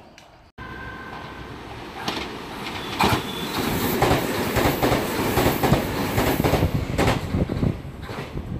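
Meitetsu μSKY electric train running past a station platform: a steady rumble that builds over the first few seconds, with the wheels knocking sharply over rail joints now and then.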